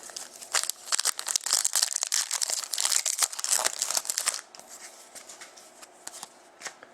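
Wrapper of a trading-card pack being torn open and crinkled: dense crackling for about four seconds, then a few lighter rustles.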